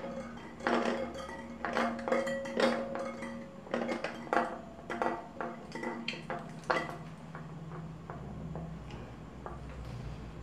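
A string of sharp metallic clinks and taps from bicycle parts and tools being handled as a front wheel is fitted into a folding bike's fork, thinning out after about seven seconds. Faint background music runs underneath.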